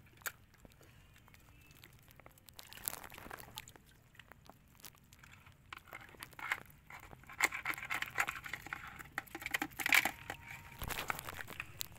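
Crabs scrabbling and clicking against the sides of a plastic bucket, with sharp clicks, scraping and light splashes as a wire hook lifts more crabs from the shallow water into it. The busiest stretch comes in the second half.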